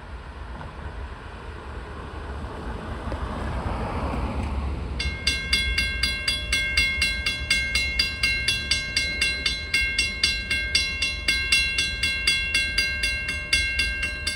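Freight train approaching with a low rumble that grows louder. About five seconds in, a railroad warning bell starts ringing abruptly, with a quick, even repeat of a few strikes a second, and keeps ringing.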